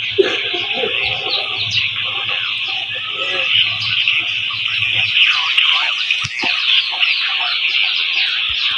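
Birds chirping over a steady, dense high-pitched drone, with a low hum underneath that stops about five seconds in.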